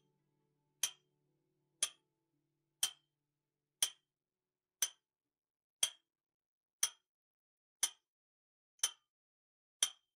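Countdown-timer tick sound effect: a sharp tick once a second, ten in all, counting down the seconds left to answer a quiz question.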